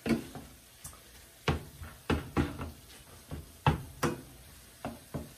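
Hamburger chopper knocking and scraping against a stainless-steel skillet as browning ground pork sausage is chopped up, with a dozen or so irregular knocks.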